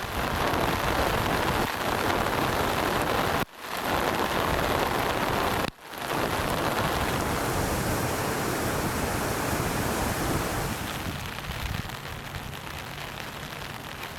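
Heavy rain coming down hard, a steady dense hiss, with wind on the microphone. The sound breaks off for an instant twice in the first six seconds and eases slightly later on.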